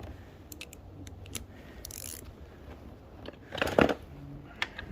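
Hand tools and metal parts clicking and clinking while the footpeg mounting bolts on a Honda CB400SF are checked for tightness: scattered sharp clicks, with a short cluster of louder knocks near the end.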